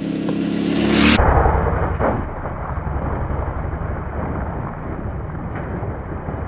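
A Yamaha Tenere 700's parallel-twin engine running while the bike is ridden, with a loud rushing, rumbling noise over it. The sound changes abruptly about a second in.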